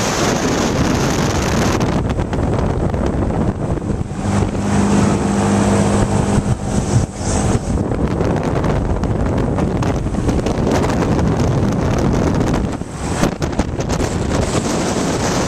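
Wind rushing and buffeting over the microphone of a camera carried on a tall, swinging fairground ride, with a low steady hum for a few seconds in the middle.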